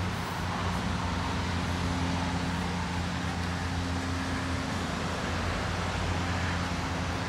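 Steady low hum of a running motor, with road traffic noise.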